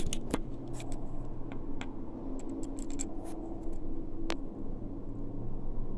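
Scattered light clicks and taps of a phone being handled and fitted into a holder, with one sharper click about four seconds in, over a steady low hum.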